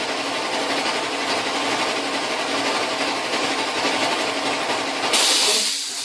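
Bench vise's sliding jaw being run back through along its freshly greased screw, a continuous mechanical running and grinding noise. About five seconds in a short, loud hiss takes over, then fades.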